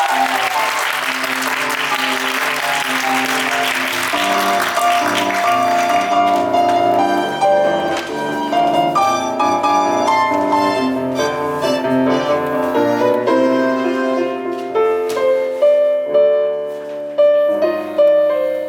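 Audience applause over music for the first several seconds, fading out, then piano music playing clear, separate notes.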